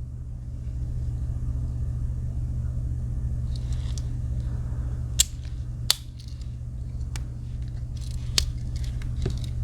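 A few sharp clicks from a Victorinox Huntsman Swiss Army knife, its tools snapping into place against their backsprings as they are folded and unfolded. The loudest come about five and six seconds in, over a steady low hum.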